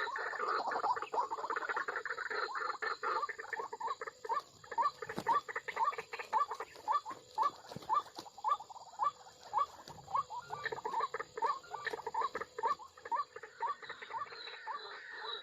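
White-breasted waterhen calling: a long series of short rising squeaky notes, about two a second.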